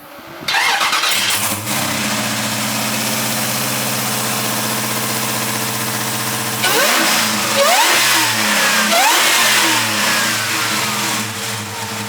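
Supercharged 6.2-litre Hellcat HEMI V8 in a 1969 Dodge Charger starting up about half a second in and settling into a steady idle, then blipped several times with rising and falling pitch from about seven seconds in before dropping back to idle.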